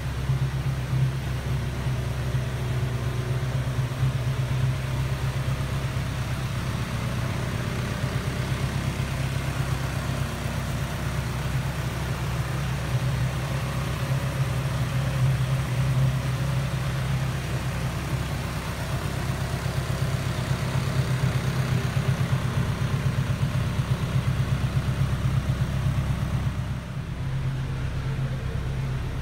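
Morgan Plus 4's four-cylinder engine idling steadily, with an even low rumble.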